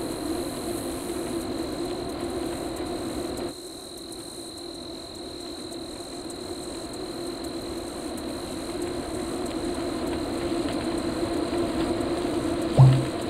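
A steady mechanical drone that drops suddenly about three and a half seconds in, then slowly builds back up. A brief, loud thump comes near the end.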